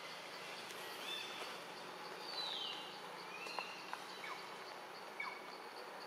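An insect's steady, evenly pulsing high chirp under a hiss of outdoor background noise, with a few short whistled bird calls, one sliding down in pitch about two seconds in, and a few light clicks.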